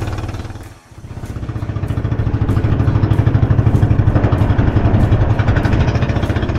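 Small fishing boat's engine running steadily with a fast, even exhaust beat; it dips briefly about a second in, then picks up again.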